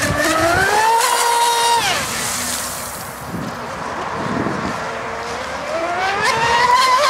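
Radio-controlled racing boat's motor running at high revs with a high-pitched whine. It rises over the first second, holds, then drops quickly about two seconds in. It climbs again over the last two seconds and falls away right at the end as the boat speeds past.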